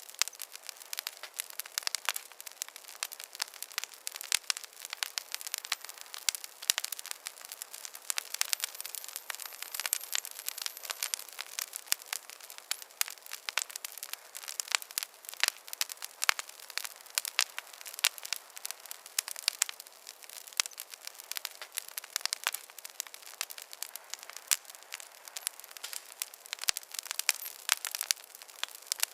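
Wood fire crackling in a fireplace: a steady stream of irregular sharp pops and snaps over a soft hiss.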